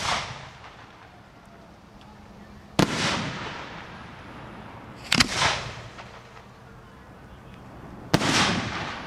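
Aerial fireworks bursting: three sharp booms about two and a half seconds apart, the second a quick double report, each trailing away over about a second.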